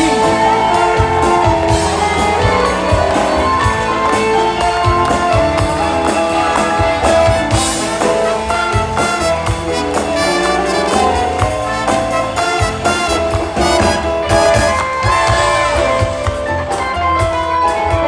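Live show band playing an up-tempo number on drums, electric guitars, keyboard and a horn section.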